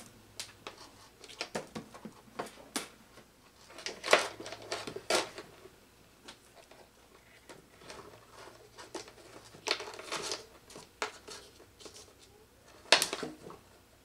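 Hands handling and twisting insulated electrical wires together: irregular light rustles, scrapes and small clicks, with the sharpest clicks about four, five, ten and thirteen seconds in.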